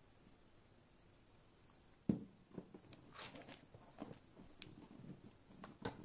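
Near silence, then handling noise from about two seconds in: a sharp knock as a small plastic handheld device is set down on a cutting mat, followed by scattered light clicks, taps and brief rustles.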